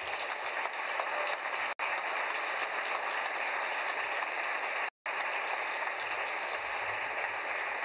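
Audience applauding steadily in a hall after a speech ends. The sound cuts out for an instant twice, about two and five seconds in.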